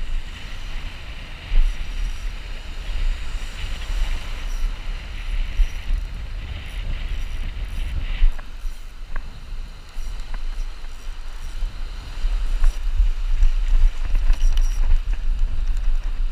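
Wind buffeting the microphone in uneven gusts, over surf washing and breaking on the beach.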